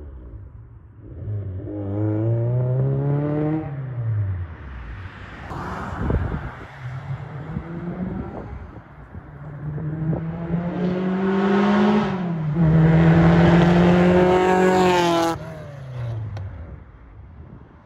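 Engine of a Honda VTEC-swapped car being revved hard through two pulls, the pitch climbing and falling each time; the second pull is the loudest and cuts off abruptly near the end before fading. The engine is on a base map with VTEC not yet activated.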